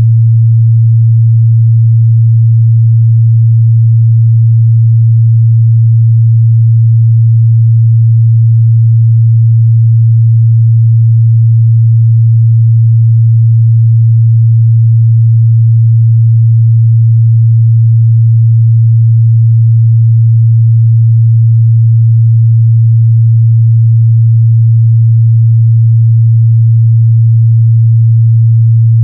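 A steady, loud 114 Hz sine-wave test tone, a single low hum held at one pitch without change.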